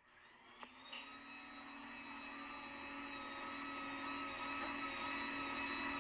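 Electric garage door opener starting up: a click or two within the first second, then a steady motor whine that grows gradually louder as it lifts the door.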